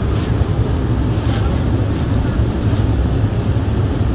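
Steady low rumble of a jet airliner's cabin in flight: engine and airflow noise.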